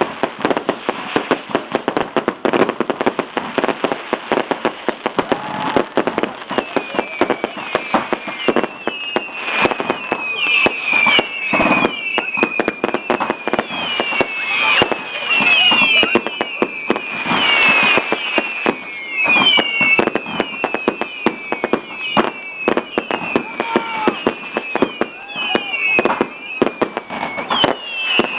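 Fireworks going off in rapid succession: a constant stream of sharp crackling bangs, and from about six seconds in many short whistles that sweep down in pitch, one after another.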